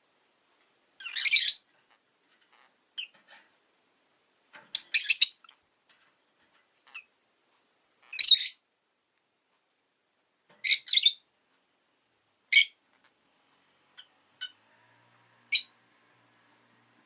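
Rosy-faced lovebirds calling: short, shrill chirps, some in quick runs of two or three, coming every couple of seconds with quiet gaps between.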